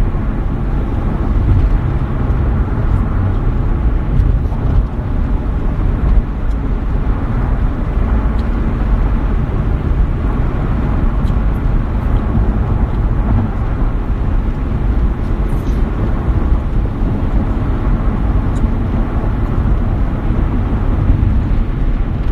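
Loud, steady low rumbling noise with no distinct events.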